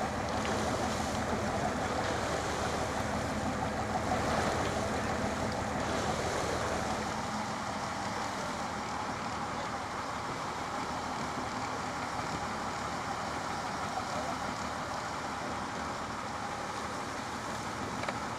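Motorboat engine running steadily, mixed with wind and the wash of the sea; its low hum falls away about seven seconds in.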